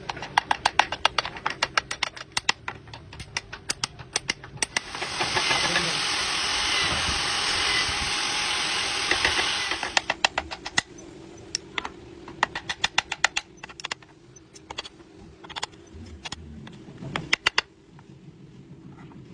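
Woodworking workshop sounds: rapid sharp taps, several a second, and a loud steady rushing noise that starts about five seconds in, lasts about five seconds and cuts off suddenly.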